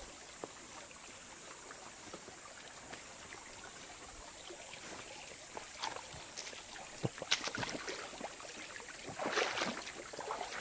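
Steady rush of water flowing over rocks in a stream, with a few short, sudden sounds about six, seven and nine seconds in.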